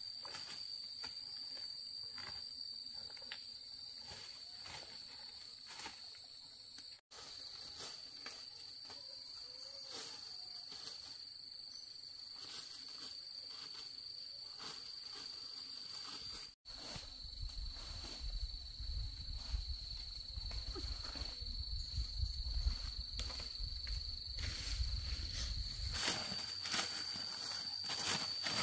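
Insects chirring, one steady high-pitched note held throughout, over scattered rustles and ticks that grow busier near the end. A low rumble comes in about two-thirds of the way through and stops shortly before the end.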